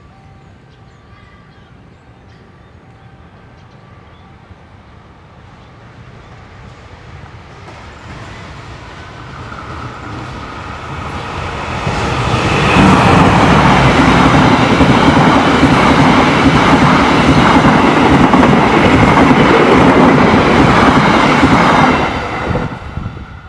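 Diesel-hauled KAI Argo Parahyangan passenger train approaching and passing close by at speed. The sound builds over several seconds, stays loud with the locomotive's engine and the wheels running on the rails for about ten seconds as the locomotive and coaches go by, then falls away sharply near the end as the last coach passes.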